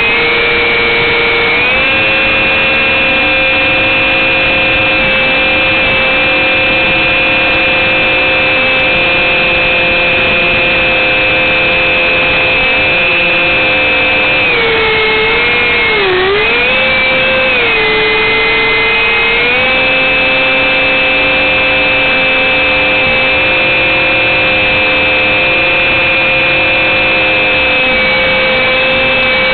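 Two ducted fans on a radio-controlled hovercraft running hard with a loud, steady whine. The pitch sags and recovers a few times as the throttle is eased, most clearly about halfway through.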